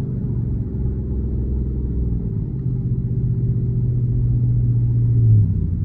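Dodge Charger R/T's 5.7-litre V8 with a catless exhaust, a low rumbling drone while driving that builds gradually and drops off just before the end.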